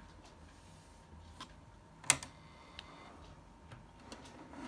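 A single sharp click about two seconds in as the slide switch on a small LM386 amplifier board is flicked on, followed by a brief faint ringing tone; a few fainter clicks from handling come before and after.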